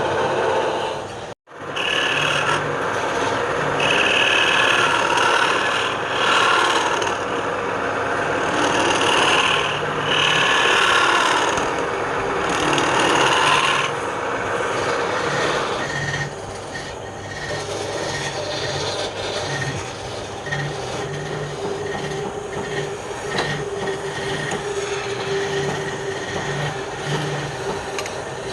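Abrasive rubbing and scraping on wood. It comes in surging strokes through the first half, after a brief cut-out near the start, then settles into a steadier, quieter rubbing over a faint steady machine hum.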